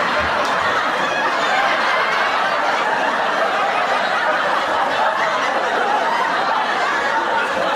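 Sitcom studio-audience laugh track: a crowd laughing together, holding steady and loud.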